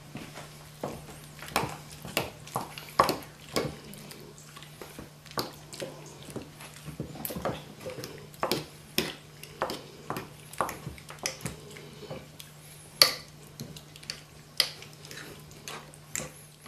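Metal fork stirring fried potato slices into beaten egg in a glass bowl: irregular clinks and scrapes of the fork against the glass, one to two a second, the loudest near the end. A steady low hum runs beneath.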